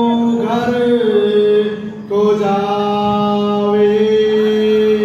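A voice chanting a devotional recitation in long held notes, with a brief break about two seconds in.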